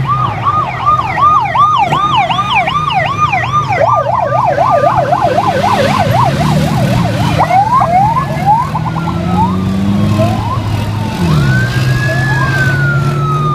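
Police escort sirens: a fast up-and-down yelp, about two or three sweeps a second, that quickens and breaks up past the middle, then slower wail sweeps rising and falling near the end. Under it runs the engine rumble of the passing motorcycles and vehicles.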